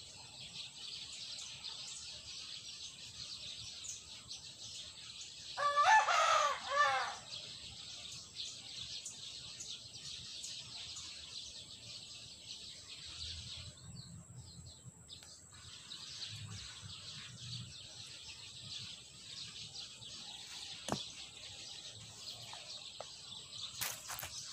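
A rooster crows once, loud and about a second and a half long, some six seconds in, over a steady high-pitched hiss of outdoor background. A few sharp handling knocks come near the end.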